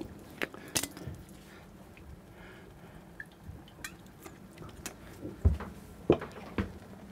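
Scattered light clicks and knocks of a jar and bottle being handled and set down on a galley counter, the loudest a single thump about five and a half seconds in.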